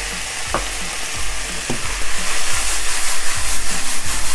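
Eggplant and onion slices sizzling in hot oil in a nonstick frying pan. There are a couple of scrapes early on, then the vegetables are tossed and shaken in the pan, which grows louder and more rhythmic from about two seconds in.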